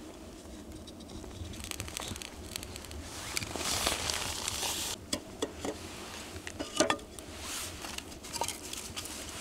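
Split wooden kindling sticks being laid and shifted onto logs in a metal fire pit to build up a fire over a lit firelighter. Rustling and scraping in the first half, then several light wooden knocks and clatters in the second half.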